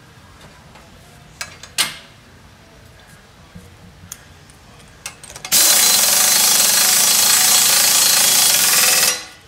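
Pneumatic impact wrench running in one steady hammering burst of about three and a half seconds, driving the propeller nut onto a mud motor's prop shaft, then cutting off sharply. Before it, a few light clicks and one sharp knock as parts are handled.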